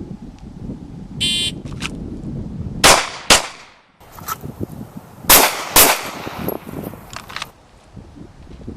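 A shot-timer beep, then about a second and a half later two pistol shots fired about half a second apart. A couple of seconds later two more pistol shots come, again about half a second apart.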